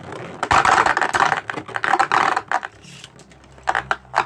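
Two Beyblade Burst tops, Spriggan Requiem and Revive Phoenix, spinning and clashing in a plastic stadium. They make a rapid, clicky clatter of hits that comes in bursts, with a quieter spell between the last two bursts.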